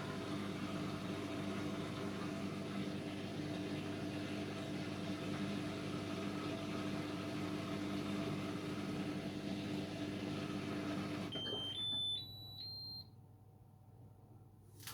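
Electrolux PerfectCare 800 condenser tumble dryer running with a steady hum, shutting down about eleven seconds in, then playing its end-of-cycle tune: a short rising run of four or five beeps signalling that drying is finished. A single click near the end.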